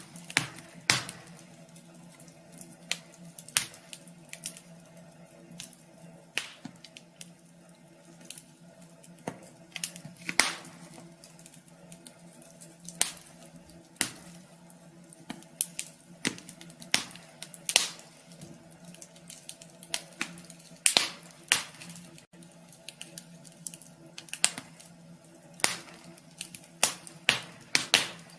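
Wood fire crackling in a wood stove: irregular sharp pops and snaps, some louder than others, over a faint steady hum.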